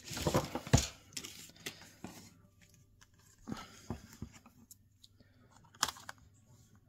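Paper rustling as a sheet of foam adhesive dimensionals on backing paper is picked up and handled, then a few quiet separate clicks as scissors cut into it.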